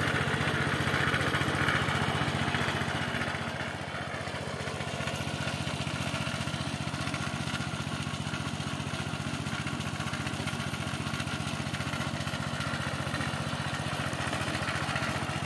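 Walk-behind motor cultivator's Subaru single-cylinder four-stroke petrol engine running steadily under load as its tines churn through soil. It gets slightly softer about four seconds in.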